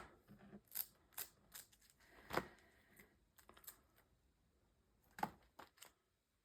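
Faint scattered clicks and light rustles of trading cards being handled and sorted, with a slightly louder tap about two and a half seconds in and another just after five seconds.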